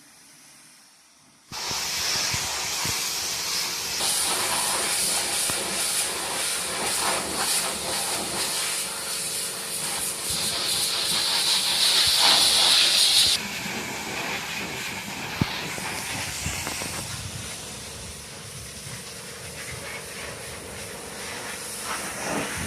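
High-pressure washer jet spraying with a steady hiss. It starts suddenly, shifts in tone several times, is loudest a little past the middle, then drops abruptly.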